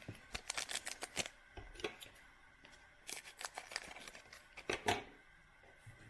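Crinkling and tearing of a foil 2019 Panini Contenders trading-card pack wrapper being opened, in short clusters of sharp crackles with pauses between.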